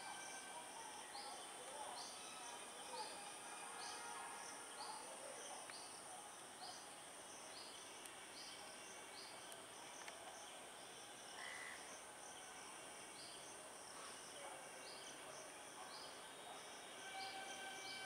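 Faint outdoor ambience: a steady high insect drone, a short high chirp repeating about once a second, and scattered distant bird calls.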